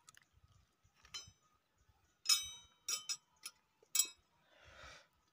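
Several light metallic clinks with a short ring, a steel spanner being picked up among hand tools; the loudest comes a little over two seconds in. A brief rustle near the end.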